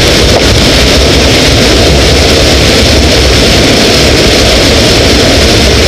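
Waterfall pouring right by the microphone: a steady, loud rush of falling water.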